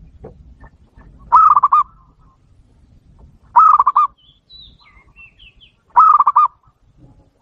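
A bird calling three times, each call a loud rapid warble about half a second long, with faint high chirps from another bird between the second and third calls.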